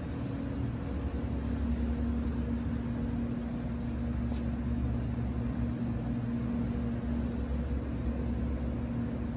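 Steady low mechanical hum of indoor room tone, with a faint steady drone and one faint click about four and a half seconds in.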